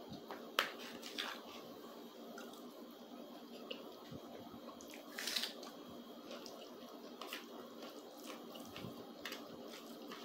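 Close-miked eating: wet chewing and squishing of food, with a spoon clicking now and then against a plastic plate. A louder wet, hissy bite or slurp comes about five seconds in.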